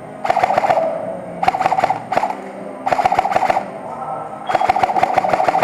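Airsoft rifle firing on full auto in four bursts, each about a second long, a rapid run of clicks over a buzzing gearbox.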